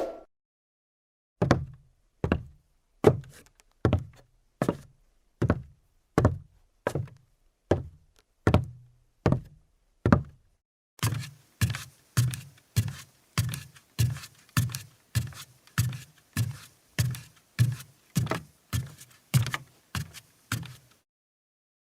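Footsteps on a wooden floor: evenly paced low thuds, one step about every 0.8 s for the first ten seconds, then quicker, about every 0.6 s, for the next ten, stopping about a second before the end.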